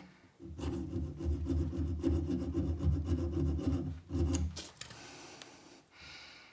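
Rapid rasping scrape of abrasive on a soldered plumbing pipe joint, rubbing back the joint that still leaks. It runs for about four seconds, then stops and gives way to fainter rubbing.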